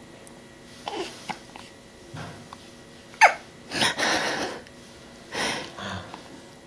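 A newborn baby hiccuping: a few short, sharp hics with breathy sounds between them, the loudest hic about three seconds in with a quick falling squeak.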